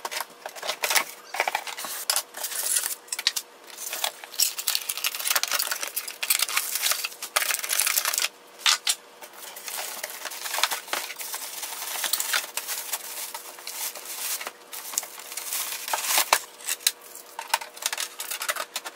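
Unboxing a printer: scissors cut the carton's tape, then cardboard flaps, foam packing blocks and a plastic bag are handled with irregular rustling, scraping and clicking, and near the end the plastic lids of the printer click as they are lifted.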